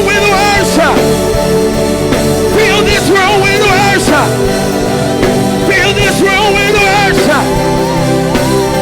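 Worship music: a voice sings three drawn-out, wavering phrases without clear words over steady sustained chords.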